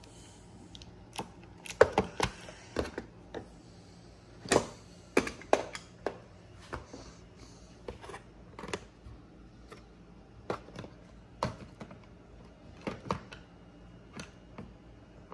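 Irregular clicks and clacks of hand tools from a tool kit being picked up and set down, the loudest knocks about two seconds in and around four to five seconds in.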